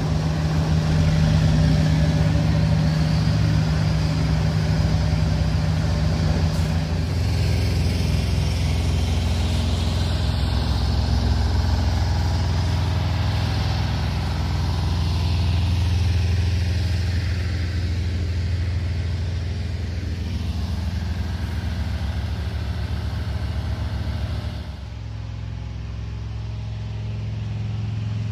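The engines of a small tracked asphalt paver and a ride-on double-drum roller running steadily together, a low machine drone that shifts in pitch as the machines work. Near the end the sound drops and turns duller.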